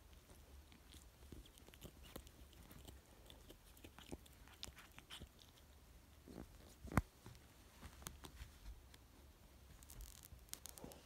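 Faint, scattered small clicks and rustles of a kitten biting and pawing at a cord, with one sharper click about seven seconds in.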